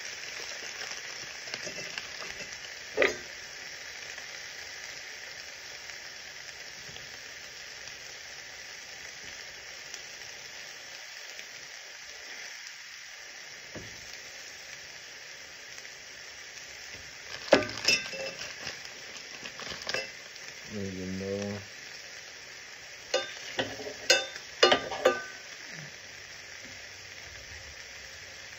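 Eggs and mixed vegetables sizzling steadily as they fry in a stainless steel skillet. A few sharp clicks and knocks cut through, once about three seconds in, a pair a little past the middle, and a quick cluster near the end.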